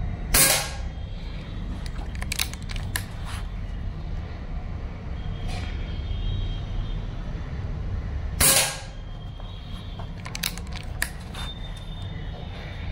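Two shots from a Precihole PX100 Achilles .177 PCP air rifle, about eight seconds apart. Each shot is followed a couple of seconds later by a run of small sharp clicks. A steady low hum runs underneath.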